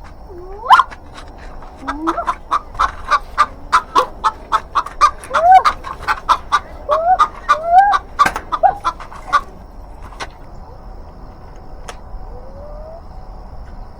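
Chickens clucking in a quick run of short sharp clucks, about three or four a second, with a few rising squawks mixed in; the clucking starts about two seconds in and stops about four seconds before the end.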